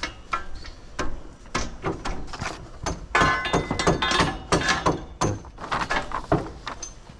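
Steel scaffold bracket and tubes knocking and clinking against the scaffold frame as the bracket is fitted, with a metallic ring about three seconds in.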